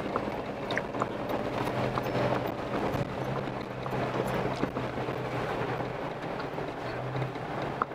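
4x4 vehicle engine running steadily at low speed on a rough, rocky mountain trail, with tyres crunching over rocks and gravel and scattered clicks and knocks from stones and the vehicle.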